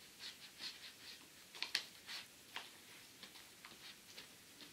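Long spork stirring freeze-dried spaghetti bolognese rehydrating in hot water inside a foil-lined Mountain House pouch: faint, irregular clicks and scrapes of the spork against the food and pouch.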